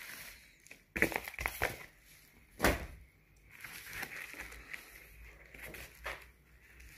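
White padded mailer envelope rustling and crinkling as it is handled, with a few sharp clicks; the loudest comes just before the middle.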